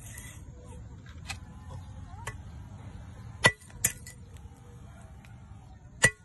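Katana blade striking a steel chain: sharp metallic clinks, two about half a second apart midway and another loud one near the end, with lighter ticks before them.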